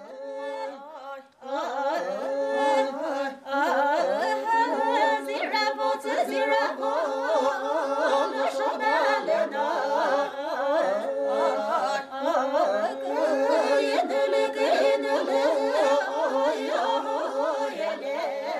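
Background music: a voice singing a wavering melody.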